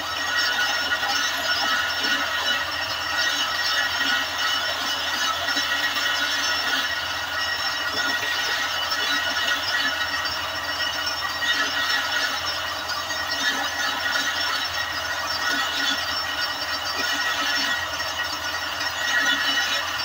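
Power sander running steadily against the hardened leaf-spring steel of a kunai blade, polishing it to a shine: a continuous rasping hiss with steady high-pitched whining tones.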